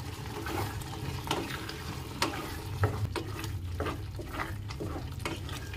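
Spatula stirring boiled chickpeas through thick masala in a nonstick kadai while they fry, with an irregular run of short scrapes and taps against the pan.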